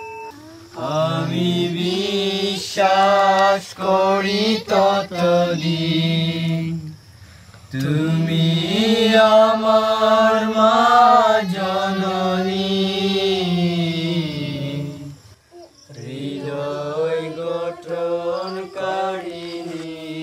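A man's voice chanting in long, drawn-out melodic phrases with a wavering pitch: three phrases with short breaks between them.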